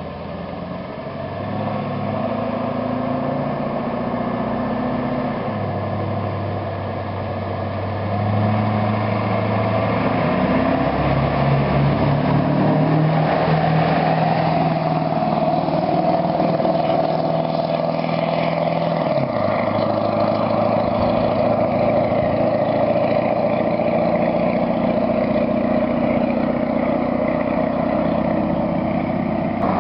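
1999 Ford 7.3 L Powerstroke turbo-diesel V8 running through a 4-inch straight-pipe exhaust, its engine speed holding and then stepping up and down several times. It gets louder about eight seconds in and drops back in pitch about two-thirds of the way through.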